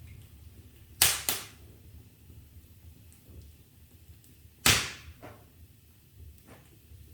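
Wood fire in a fireplace crackling: a few sharp, loud pops about a second in, again just after, and near the middle, with fainter crackles over a low steady rumble.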